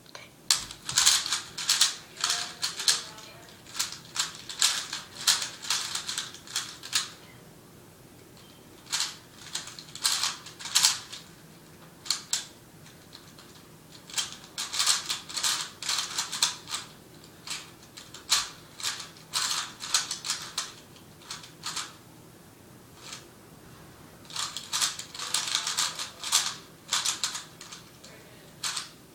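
3x3 Rubik's cube being turned fast by hand: quick runs of plastic clicking and clacking, in spurts of one to three seconds broken by short pauses.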